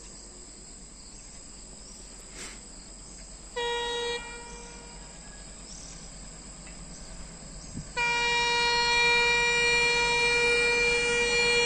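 Horn of an approaching WDM3D ALCO diesel locomotive. It gives a short blast about three and a half seconds in, then a loud, long, steady blast from about eight seconds on, over a faint steady hiss.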